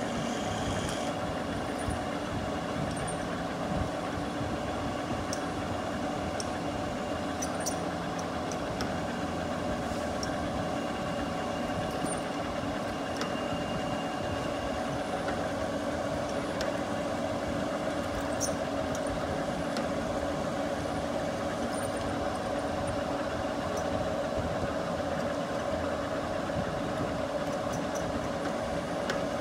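Metal lathe running, with a twist drill in the tailstock chuck boring into the spinning metal workpiece: a steady machine hum with a constant tone, and a few faint ticks.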